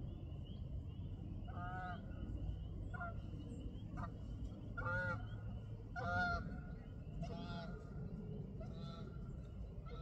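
Geese honking: about seven short, separate honks spread through, the loudest near the middle, over a low steady rumble.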